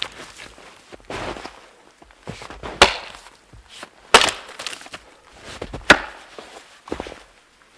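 Wood being chopped: a series of irregular sharp knocks, the loudest about three, four and six seconds in.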